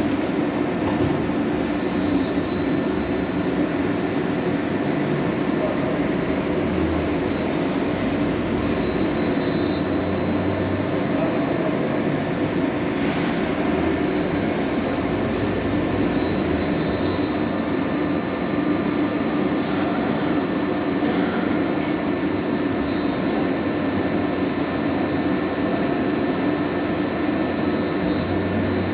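Cazeneuve ID-MAX CN 600 CNC lathe running: a steady mechanical noise with a thin, high, continuous whine over it.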